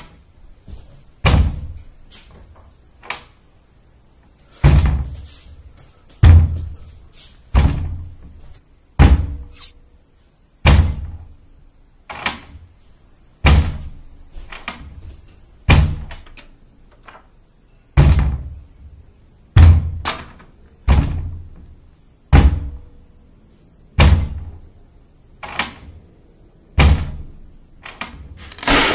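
Heavy banging, one deep, hard blow about every one and a half seconds, each dying away quickly.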